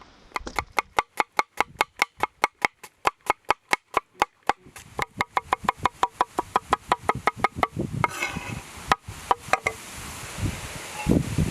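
Knife chopping rapidly on a wooden cutting board: a fast, even run of sharp knocks, about five a second, that stops about eight seconds in. A few scattered knocks and rustling follow.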